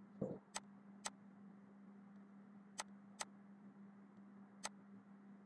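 Computer mouse clicking five times: two quick pairs, then a single click, over a faint steady hum.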